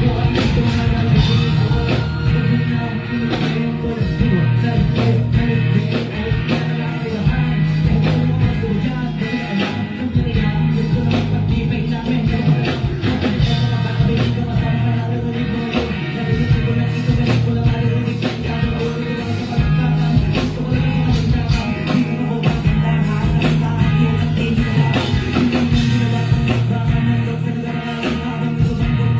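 Live hip-hop performance: a rapper's amplified vocals over a loud backing beat with strong bass, played through the stage's sound system.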